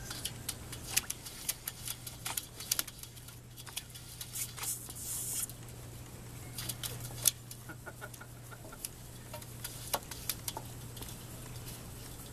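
Standard poodle puppies nosing and lapping at shallow metal pans: irregular sharp clicks and taps of tongues, paws and muzzles against the metal, with a brief hiss about five seconds in.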